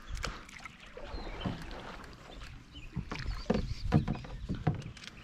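Scattered knocks and clunks in a canoe, busier and louder in the second half.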